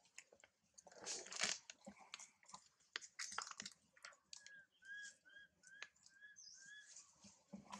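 Faint rustling, scratching and small crunches as long-tailed macaques shift about in dry leaves and an infant gnaws on a stick. About halfway through, a run of six short, evenly spaced high chirps comes in.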